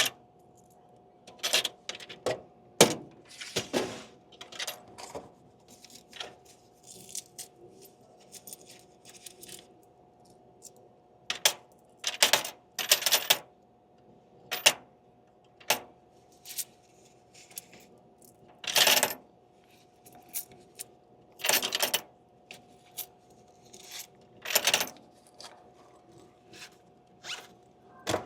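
A vending machine being restocked by hand: irregular sharp clicks, rattles and short rustling bursts as items are handled and loaded in, with a faint steady hum underneath.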